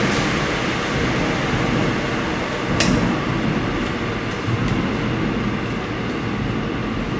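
Steady rumble and hiss of a subway station platform, with one sharp click about three seconds in.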